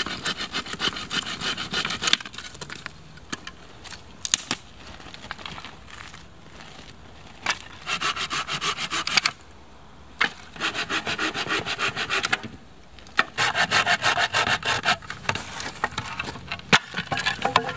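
Saw blade cutting through a dry, dead branch in quick back-and-forth strokes, in several runs of a second or two with short pauses between. A few sharp knocks of wood fall between the runs.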